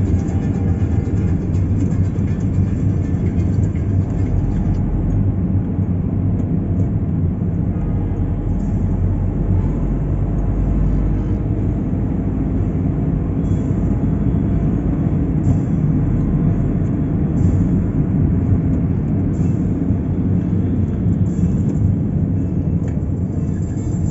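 Steady low rumble of a car driving in city traffic: road and engine noise.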